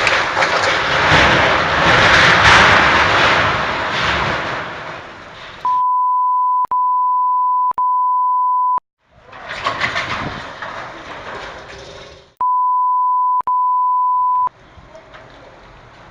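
Strong gusty wind blasting the microphone, dying down after about five seconds. It is cut twice by a steady high beep tone, a censor bleep, first for about three seconds and later for about two, with wind noise between and after.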